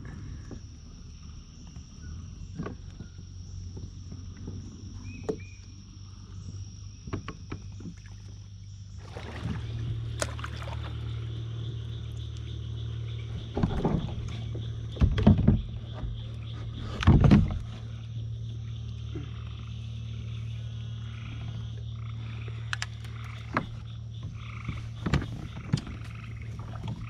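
Kayak under way on a creek: a steady low hum that gets louder about nine seconds in, with a few loud knocks in the middle.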